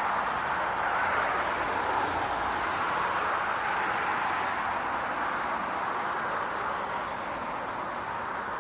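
Jet airliner's engine noise as a steady rush, slowly fading as the aircraft moves away.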